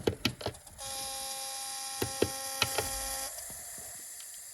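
A model train's sound decoder playing its diesel-unit sounds through a small bare speaker with no enclosure. It is thin and very quiet, with a steady buzzing tone from about a second in until past three seconds, among irregular sharp clicks.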